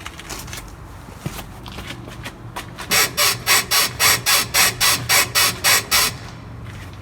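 Rear floating silent block (the floating rubber bushing of the rear suspension) on a Mercedes-Benz E-Class W211 squeaking as the suspension moves: about a dozen sharp squeaks, roughly four a second, starting about three seconds in and stopping around six seconds. The squeak is the sign of a failing floating bushing, the known W211 complaint of squeaking over bumps.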